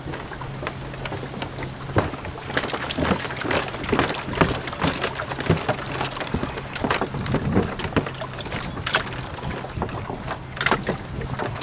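Rowing boat on the water: irregular knocks and splashes from the hull and oars, over a steady low hum.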